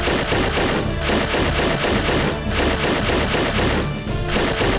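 Chauchat automatic rifle firing full-auto in three long bursts of rapid shots, heard as an added gunfire sound effect over background music.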